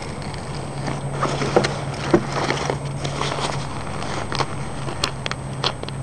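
Nylon scuba BC vest being handled and shifted about, with irregular rustling and clicks of its straps and metal D-rings, over a steady low hum.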